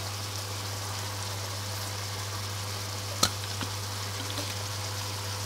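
Minced beef with water and seasonings sizzling steadily in a non-stick frying pan, an even hiss with a steady low hum underneath. A single sharp tap about three seconds in, with a faint second one just after.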